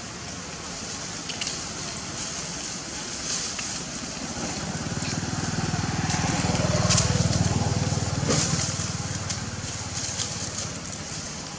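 A motor's low hum swells, peaks and fades away around the middle, over a steady hiss with scattered crackles and clicks.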